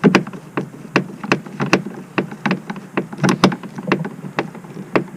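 A string of sharp, irregular clicks and taps, about two or three a second, as a Phillips screw is driven back into a truck's plastic interior door panel by hand.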